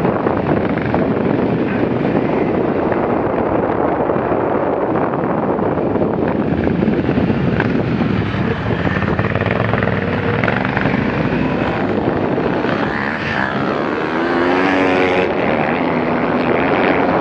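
Enduro motorcycle engine running under way on a dirt trail, mixed with rough noise from the ride. About three-quarters of the way through, a clearer engine note rises in pitch a few times as the throttle opens.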